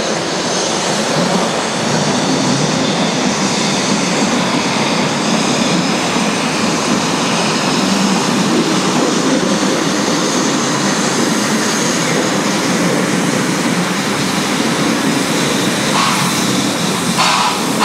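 Narrow-gauge steam tank locomotive hauling a train of carriages, with a steady running noise as it approaches over a timber trestle; near the end its exhaust chuffs come through, about two or three a second.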